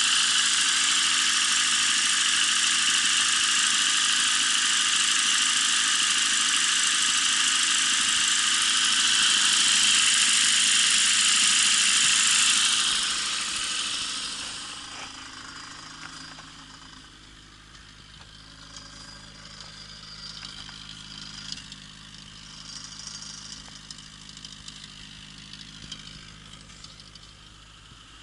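Lada Zhiguli's 1.8-litre engine running steadily and loudly, evenly by the owner's ear as he hunts for a knock; about 13 seconds in the sound fades over a few seconds to a much quieter low running sound with faint ticks.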